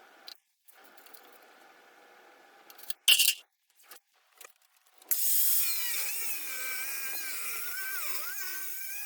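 A sharp clank about three seconds in, then a power tool starts about five seconds in and runs loudly under load, its whine wavering and dipping in pitch.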